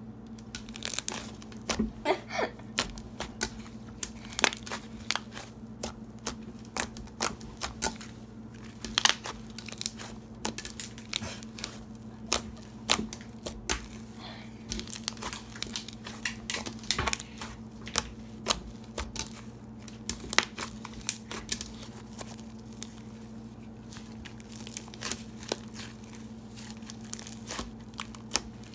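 Icee-style slime being mixed and squished by hand, making irregular sticky crackles, pops and clicks throughout. A low steady hum runs underneath.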